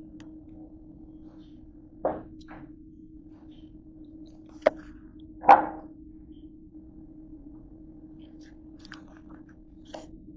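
Short knocks and handling noises of food and a paper drink cup on a plastic tray, the loudest about five and a half seconds in, over a steady low hum.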